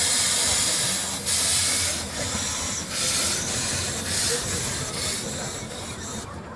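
Small narrow-gauge steam locomotive moving off slowly, with steam blowing from around its cylinders. It makes a loud steam hiss that swells in rhythmic blasts about once a second, then fades as the engine draws away.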